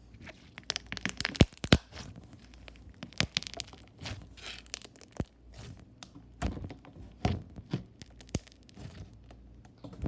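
Slime being squeezed and stretched by hand, making irregular sharp clicks and pops, the two loudest about one and a half seconds in.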